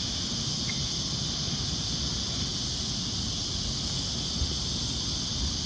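Steady high-pitched insect chorus, such as crickets or cicadas, holding level throughout, over a low steady rumble.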